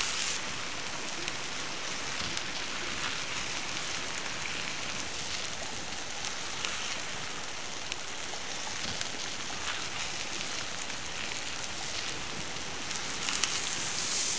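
Beef fillet sizzling in hot fat in a cast-iron skillet over an open fire: a steady frying hiss with fine crackles, growing louder near the end as the steak is turned over with a spatula.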